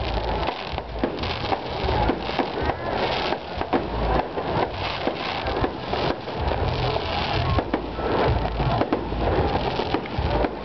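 Aerial fireworks bursting overhead: a dense, continuous run of crackling pops and bangs with deeper booms underneath.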